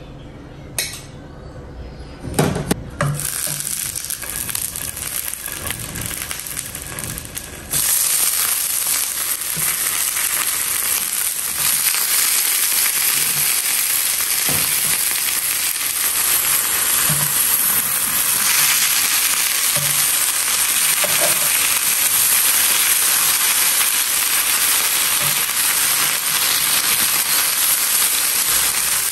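Metal tongs clinking and knocking against a steamer and plate, then about eight seconds in a loud steady sizzle starts as banana-leaf-wrapped fish parcels fry in a hot non-stick pan, with occasional light knocks of the tongs turning them.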